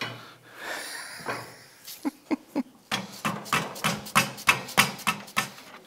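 Dead-blow hammer tapping repeatedly on metal motorcycle exhaust parts: a quick, even run of sharp taps, about four a second, starting about three seconds in. A few metal clinks come before it.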